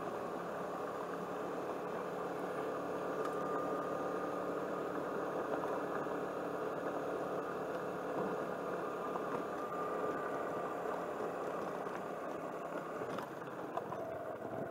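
Suzuki Burgman 200 scooter's single-cylinder engine running steadily while riding along a gravel road, with road noise underneath; it drops slightly near the end.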